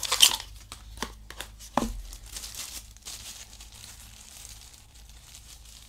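Thin plastic bag crinkling and rustling as a guitar pedal is unwrapped from it, loudest in the first half-second, with a couple of small knocks. It grows quieter over the last few seconds.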